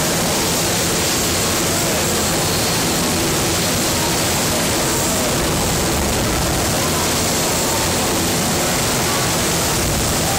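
Jet engine of a jet-powered show vehicle running at full power with its afterburner lit, a loud, steady rushing roar as its exhaust flame burns a car.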